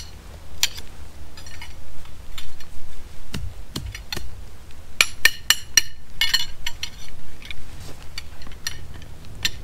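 Tent poles clinking and knocking together as they are taken down and packed: a string of separate sharp clicks, bunched most thickly around the middle.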